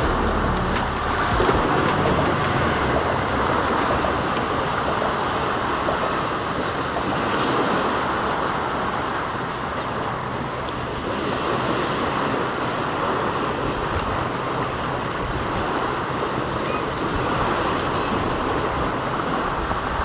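Steady rush of surf and wind, with wind on the microphone, and a few faint high chirps now and then.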